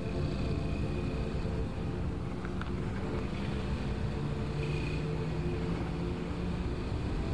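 A motor vehicle's engine running steadily along with road noise.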